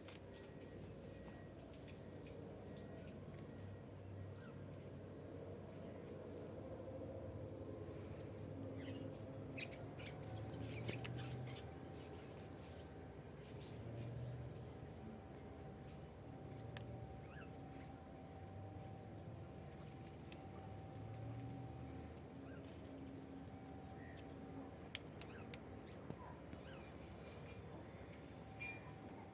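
Rural outdoor ambience: a thin, high chirp repeats evenly about once every 0.7 seconds throughout, from an insect or bird, over a low rumble, with a few faint clicks.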